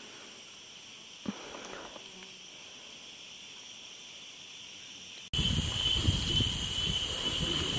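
Steady high-pitched chorus of rainforest insects, with a single click about a second in. About five seconds in the sound cuts to a louder stretch: the insect buzz stronger, over low rough noise and knocks.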